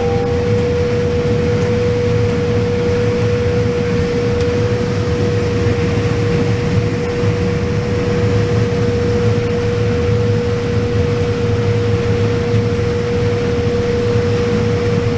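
Combine harvester running steadily while harvesting corn: a constant low rumble with a steady whine held at one pitch.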